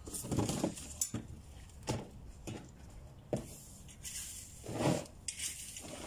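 Irregular knocks, scrapes and clinks of pots and garden tools being handled while strawberry plants are repotted, with louder knocks about 2 and 3 seconds in and a longer scrape near 5 seconds.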